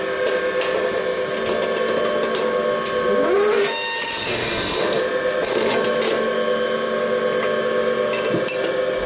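Factory machinery running with a steady multi-tone whine. About three seconds in there is a rising whine, then a second or so of hissing noise before the steady running resumes.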